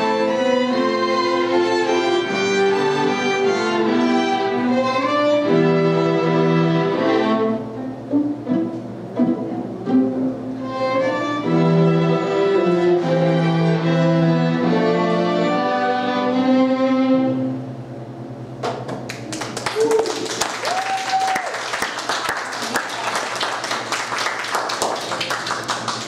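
A small ensemble of violins playing, with a quieter passage of short, detached notes about a third of the way in, and closing on a held low chord. A moment later the audience breaks into applause for the last quarter or so.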